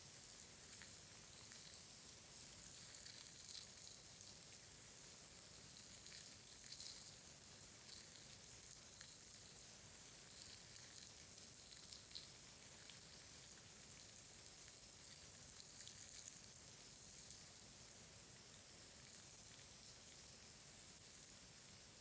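Faint, close-miked ASMR trigger sounds: a soft, steady crackle made of many tiny clicks, with a few slightly louder clusters along the way.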